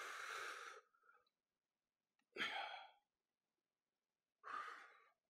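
A man breathing out hard three times during a deep kneeling stretch: breathy sighing exhales a couple of seconds apart, the first one the longest, with silence between them.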